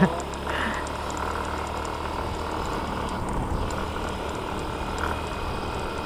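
Motorcycle engine running steadily under way, with a constant low hum mixed with wind and road noise.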